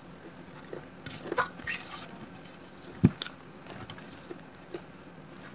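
Close-up mouth sounds of a person eating red clay paste: scattered wet clicks and crackles of chewing, with a dull knock about three seconds in.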